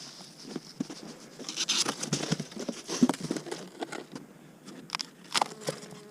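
Irregular taps, knocks and crinkling rustles from handling wintered beehives: hive boxes and wrapping being moved and opened.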